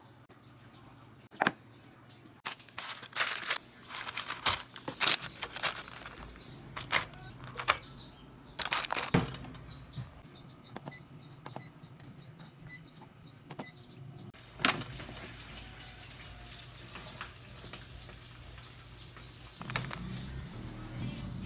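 Clicks, knocks and clatter of food containers, lids and utensils being handled for several seconds. Then a steady whirring hiss begins with a click about two-thirds of the way through and carries on to the end.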